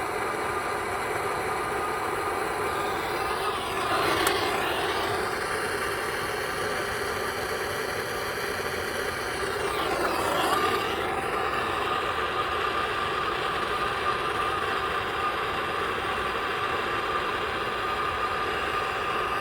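Plumber's gas torch flame burning with a steady rush while heating a copper joint on a shower valve for soldering. It swells louder twice, about four seconds in and again around ten seconds.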